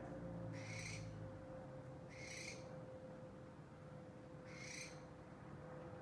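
An owl giving three short, harsh, hissing screeches, about two seconds apart.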